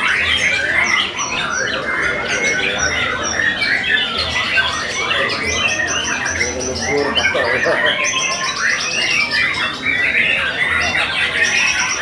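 Several white-rumped shamas (murai batu) singing at once in a dense, continuous chorus of varied whistles, trills and chattering phrases, with runs of fast repeated high notes.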